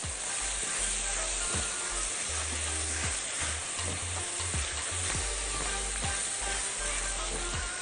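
Beef strips, sliced onions and garlic sizzling steadily in oil in a skillet while a spatula stirs and turns them: the meat and onions being sautéed before the sauce goes in.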